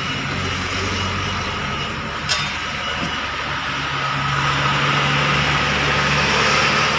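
A nearby motor-vehicle engine running steadily, growing louder in the second half as it comes closer, with one sharp click about two seconds in.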